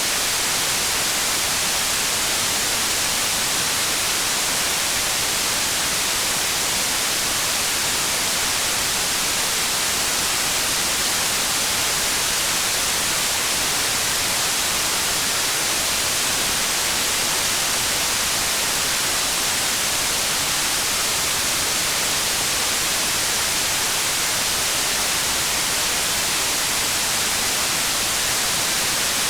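Steady, even hiss of a rain-sound recording, brighter than it is deep, with no separate drops or changes standing out.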